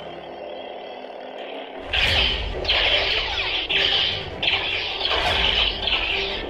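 Toy lightsaber sound effects from a duel: a steady low hum, then from about two seconds in a quick run of about five loud clash sounds as the blades strike.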